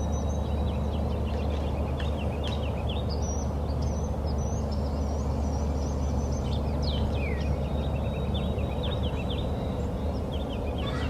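Several birds chirping and singing in many short, quick calls that slide up and down in pitch, over a steady low rumble.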